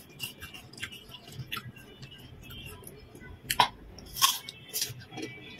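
Mouth sounds of eating crisp raw fruit slices dipped in chili sambal: crunchy bites and wet chewing clicks. The loudest crunches come about three and a half to five seconds in, as a slice is bitten.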